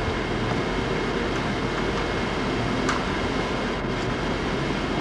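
Steady, even rushing noise with a faint low hum and a thin high tone running under it, and one brief tick about three seconds in.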